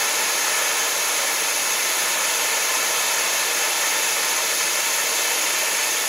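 Steady hiss of a gas torch flame, burning without change, as it heats a case-hardened steel padlock shackle to a glow to anneal it.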